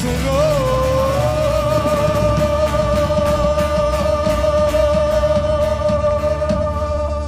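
Live rock band playing, with a singer holding one long high note that wavers a little, over electric guitar, bass and a steady drum beat.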